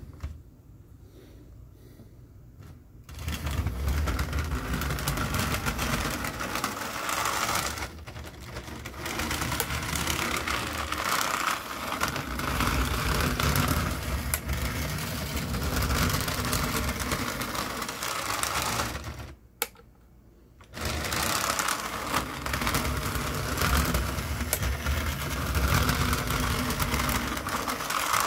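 Playart HO-scale Santa Fe F7 diesel model locomotive running on its track, its small motor and gears giving a steady mechanical whir and rattle. The sound starts about three seconds in, dips briefly near eight seconds and cuts out for about a second around twenty seconds, then runs on.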